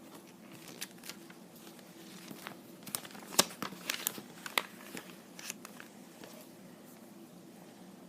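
Small plastic Lego pieces being handled and pressed together: a run of light clicks and knocks, busiest in the middle with one sharper click about three and a half seconds in.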